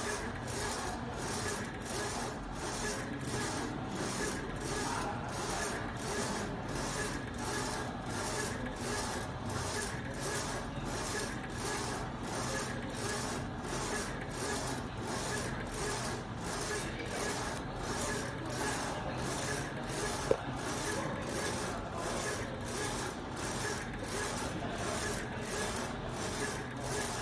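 Small UV flatbed printer's print-head carriage shuttling back and forth over a PVC card, in an even rhythm of about two passes a second. A single sharp click stands out about twenty seconds in.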